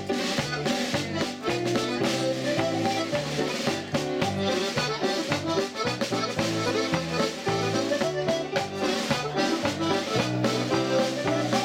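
Irish traditional dance tune played on two button accordions and a banjo together, with a drum keeping a steady beat.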